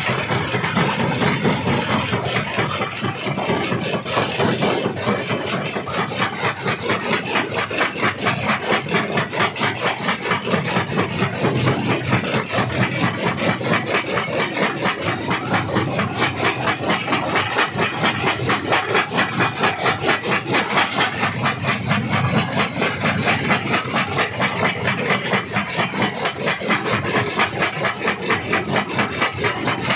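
Stone crusher grinding rock: a steady, loud, rasping crunch that pulses fast and evenly, several beats a second, over a running engine.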